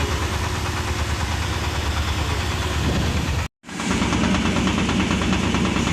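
Mahindra Jeeto's diesel engine idling steadily with a knocking clatter. The sound drops out completely for an instant a little past halfway, then carries on with a slightly different tone.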